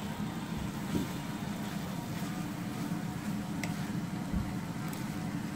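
Cabbage and carrots being stir-fried in a wok on the stove: a steady low rumble, with a few light taps of the wooden spoon against the wok.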